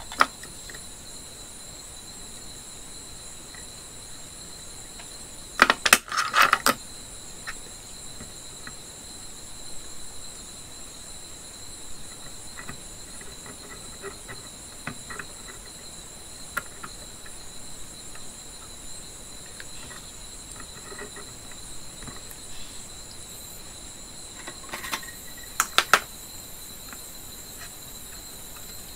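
Sharp clicks and rattles of wires and small metal clips being handled, in a cluster about six seconds in and another near the end, with a few faint ticks between. A steady high-pitched whine of several pure tones runs underneath.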